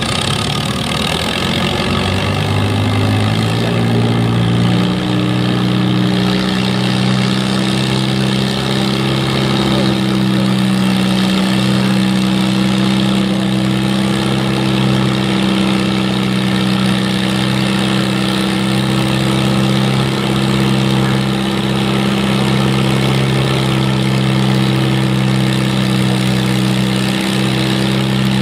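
Antique farm stock tractor's engine revving up over the first few seconds, then holding a steady high engine speed under load while dragging the weight transfer sled slowly down the track.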